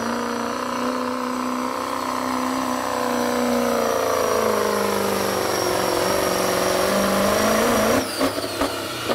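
Ford Super Duty diesel pickup pulling a weight-transfer sled at full throttle: the engine note sags slowly as the sled loads it down, rises briefly, then cuts off sharply about eight seconds in as the throttle is let off at the end of the pull. A high steady whistle runs over the engine.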